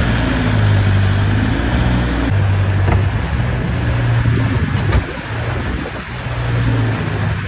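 Fishing boat's engine running steadily in rough, windy weather, its pitch shifting a couple of times, with wind and a couple of sharp knocks.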